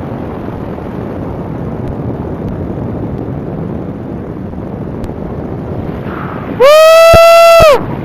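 Steady wind rush over the microphone of an ultralight tow plane in flight. About two-thirds of the way in, a loud tone slides up in pitch, holds steady for about a second, and stops suddenly.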